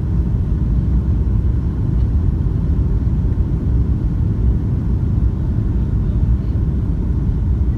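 Steady low rumble of a jet airliner's cabin noise, engine and airflow heard from inside the cabin during the descent to land.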